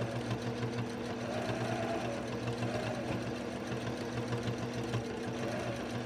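Electric sewing machine running at a steady speed, stitching a seam along the edge of a pillow, with an even motor hum that holds one pitch throughout.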